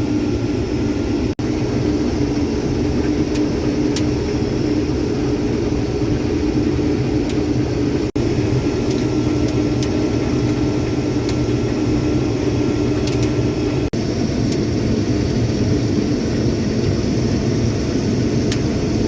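Case IH 2388 combine running steadily while cutting beans: a continuous low mechanical drone, broken by three very brief dropouts.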